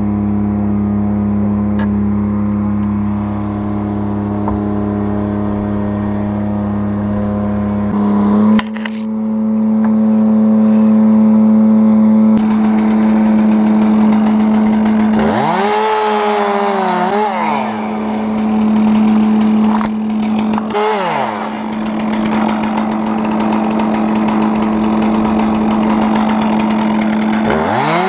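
Gas chainsaw running at high throttle while cutting trees. It holds a steady high note, and its pitch dips and recovers briefly three times in the second half.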